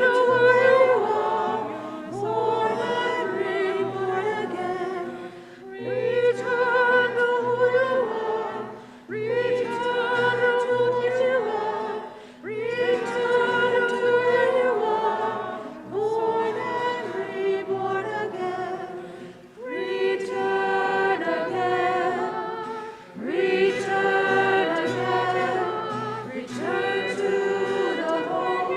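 A group of voices singing a slow hymn together in phrases of about three to four seconds, with a low held accompaniment beneath.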